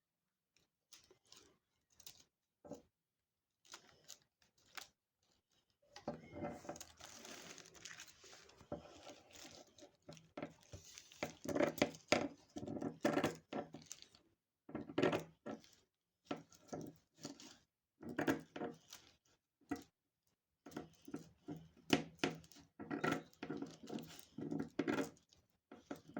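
Tissue paper being cut with scissors and handled: irregular snips and paper rustling, busier from about six seconds in.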